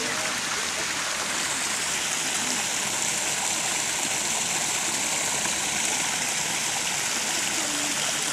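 Small creek running over a rocky cascade: a steady rush of water.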